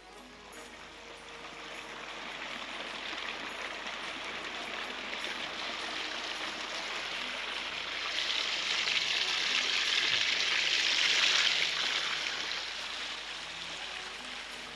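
Water falling over an artificial concrete-rock garden waterfall into a pond: a steady rush of splashing water that swells to its loudest a little past the middle and eases off near the end.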